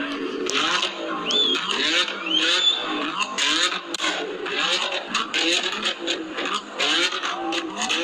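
Car engine revving hard, its pitch climbing and dropping again and again, with two short high squeals about a second in and a second later.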